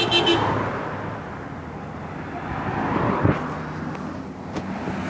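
Road traffic passing close by: vehicles rushing past, the noise swelling about three seconds in, followed by a steady engine hum.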